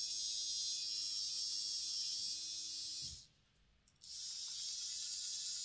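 Hornby APT power car's ringfield motor bogie running off a 9 V battery held to its contacts, a high, even whirr of the motor and gears. It stops about three seconds in and starts again a second later, running freely after new brushes and springs and cleaned, greased gears.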